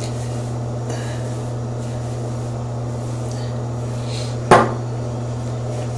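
A single sharp knock about four and a half seconds in, over a steady low hum.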